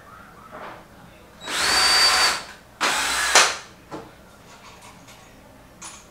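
Cordless drill running into a wooden slat in two bursts of about a second each, the first with a steady high whine, the second ending sharply; a few light knocks of handling around them.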